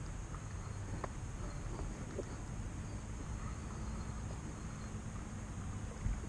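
Steady high-pitched chirring of insects with a low wind rumble on the microphone, a few faint clicks and a soft thump near the end.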